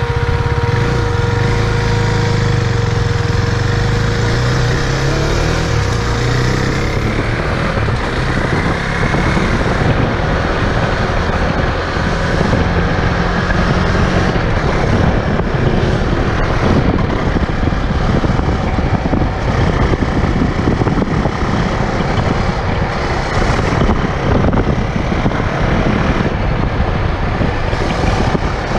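A KTM 390 Duke's single-cylinder engine running under way on a new bike still being run in, its pitch rising and falling over the first few seconds. After that the engine is largely covered by steady wind rushing over the microphone.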